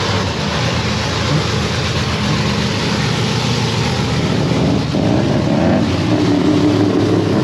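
A race car's engine running loud and steady with a low, rough rumble; its pitch shifts a little about five seconds in.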